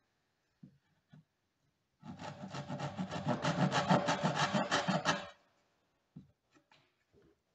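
Backsaw cutting down into the end grain of a wooden board for a hand-cut joint: a quick run of short rasping strokes starting about two seconds in and lasting about three seconds. A few faint taps before and after.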